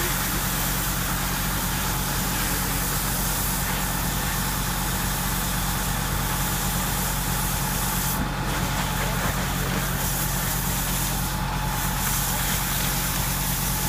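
Fire engine's diesel engine running steadily at a constant speed, driving the pump for the hose line, under a steady hiss of water spraying. Two short, sharper hisses come about three seconds apart in the second half.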